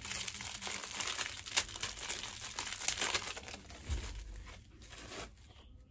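Crinkling and rustling of the wrapping on an individually wrapped fashion-jewelry necklace as it is unwrapped by hand, made up of many quick crackles, dying away near the end.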